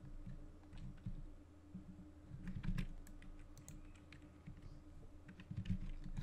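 Scattered clicks of a computer keyboard and mouse, including scroll-wheel clicks, at irregular intervals over a low steady hum.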